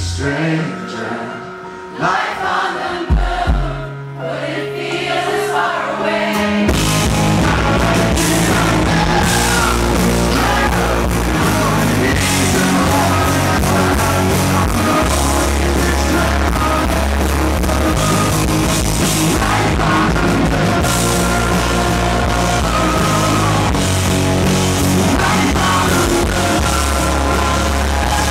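Live rock band playing, with a male lead vocal. It opens on a quieter, sparse passage with the singing and a few low notes, then about seven seconds in the full band comes in loud with drums and electric guitars.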